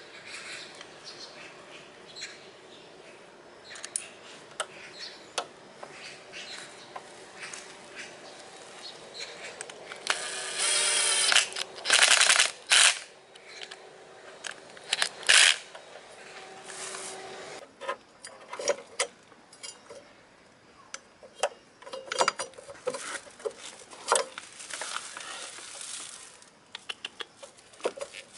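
Metal clicks, clinks and scrapes as a Daelim S300 scooter's front brake caliper and its pads are handled and worked with a screwdriver, with a louder harsh stretch about ten seconds in lasting a couple of seconds and a few sharp scrapes after it.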